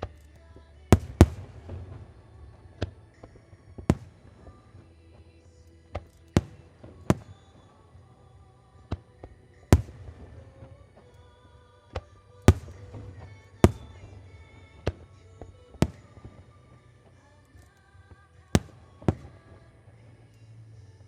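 Aerial fireworks shells bursting: about sixteen sharp bangs at irregular intervals, some in quick pairs, with music playing underneath.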